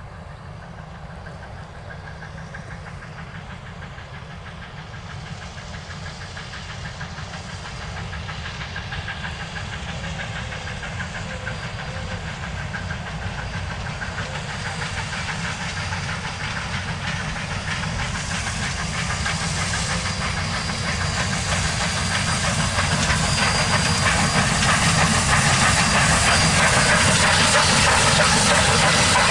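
Baldwin 2-8-0 steam locomotive No. 1702 working a passenger train, its exhaust beat and steam hiss growing steadily louder as it approaches.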